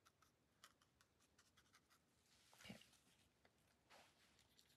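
Near silence with faint taps and scratches of a round watercolour brush dabbing paint onto watercolour paper, and one slightly louder brief rub about two and a half seconds in.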